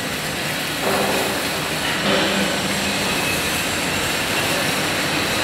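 Steady industrial workshop noise from a fabrication and welding hall: a dense, even hiss of machinery with faint hums, stepping up a little about a second in.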